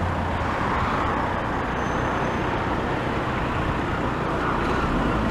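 Steady road traffic, cars driving past on the street, with a low engine hum under the tyre noise.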